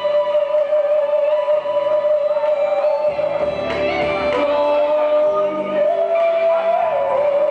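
Live band playing with a female vocalist holding one long, loud note that steps up briefly and drops back near the end.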